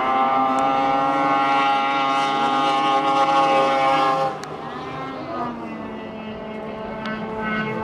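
Snowmobile engine held at high revs while the sled skims across open water, a steady high whine. About four seconds in it drops to a quieter, more distant engine, which climbs in pitch again near the end.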